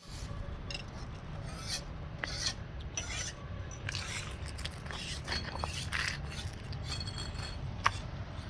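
Irregular scraping and rubbing strokes of hand tools working on sandstone, with a few sharp clicks, the loudest a bit before the end, over a steady low rumble.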